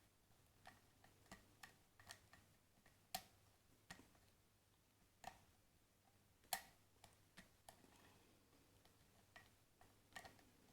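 Faint, irregular clicks and ticks of a lock pick working the pins of a Vita lock cylinder, with two sharper clicks about three and six and a half seconds in. The pick is lifting spool pins while the plug sits in a deep false set.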